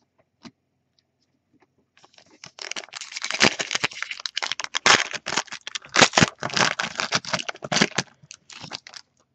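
A Panini Elite trading card pack's foil wrapper being torn open and crinkled, a dense run of crackling that starts about two seconds in and goes on while the cards are slid out of it.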